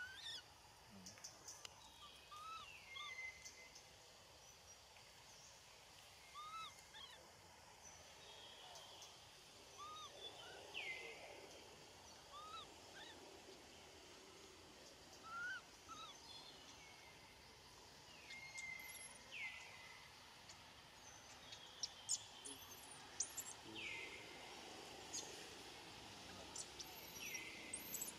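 Faint outdoor ambience with birds calling: short whistled chirps and down-sweeping notes every second or two, more frequent near the end.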